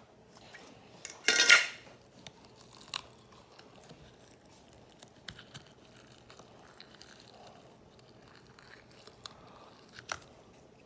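Handling noises: a brief crunchy rustle, like plastic being crinkled or torn, about a second and a half in, then scattered light clicks and taps.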